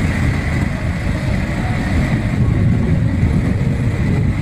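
Diesel engine of an L&T 1190 single-drum road roller running with a steady low rumble.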